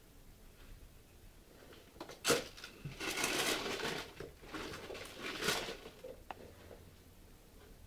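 Rustling and crinkling of packaging being handled: a sharp crackle about two seconds in, then about three seconds of rustling, and a small click near the end.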